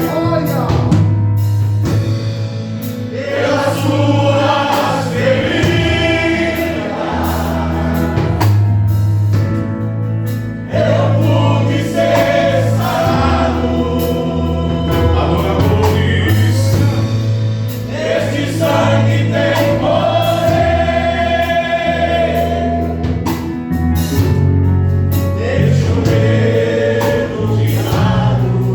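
Gospel song sung by a male vocal group in choir style over a steady bass accompaniment.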